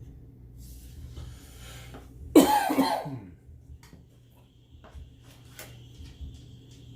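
A person coughs once, loudly, about two and a half seconds in, over faint clicks and light kitchen handling noise.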